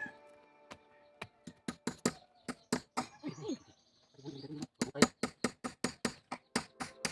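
Hammering: repeated sharp knocks at an uneven pace of about three a second, with a brief voice in the middle.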